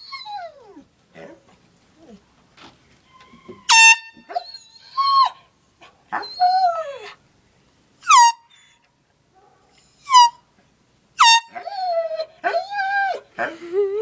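A handheld air horn gives four short blasts, and a dog answers them with drawn-out howling cries that rise and fall in pitch.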